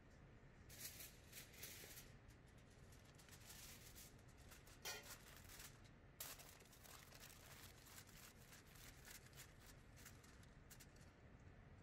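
Aluminium foil crinkling as hands press it down over a steel tray and crimp it around the rim, a faint run of irregular crackles.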